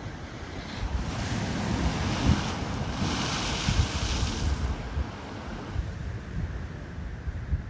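Small sea waves surging and breaking over rocks at the shoreline, a splash washing through the rocks about three seconds in, with wind buffeting the microphone.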